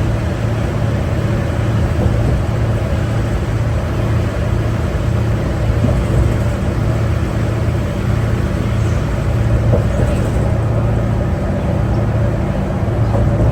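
Cummins ISL9 straight-six diesel of a New Flyer D60LFR articulated bus running at a steady pace, with a low engine drone and road noise heard from inside the cabin.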